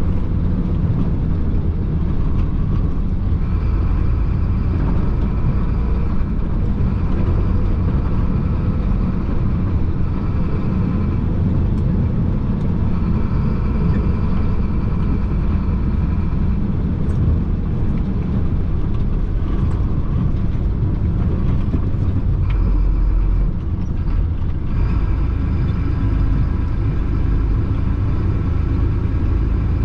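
Chenglong concrete mixer truck driving steadily: a low engine drone and tyre rumble on a concrete road, with a faint steady whine over it.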